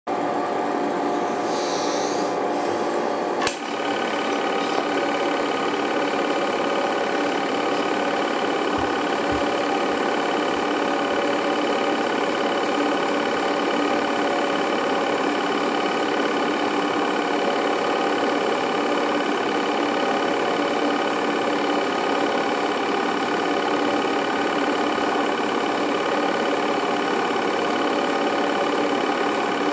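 Steady whir and rapid clatter of a home-movie film projector running, with a single sharp click about three and a half seconds in.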